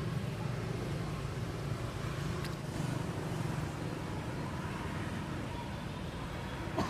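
A steady low motor hum, with a short sharp click near the end.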